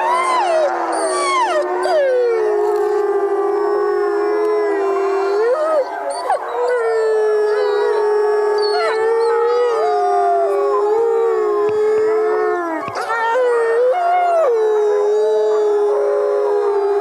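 Several wolves howling together in chorus. One low howl is held steady with brief upward bends, while higher howls overlap it, sliding up and down in pitch.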